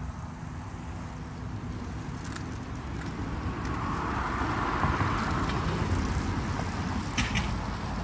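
Motorised Lego train, a customised Lego Maersk train with Powered Up motor, running on plastic Lego track: its motor and wheels whir louder as it comes close about halfway through, then ease off, with a few light clicks.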